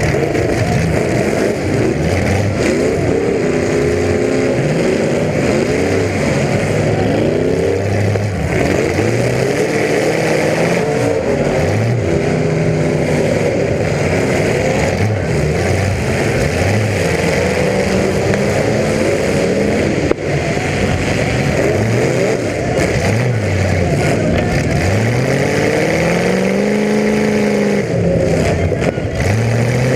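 Demolition derby car engines revving hard, the pitch climbing and dropping again and again, several engines overlapping over a constant loud noise.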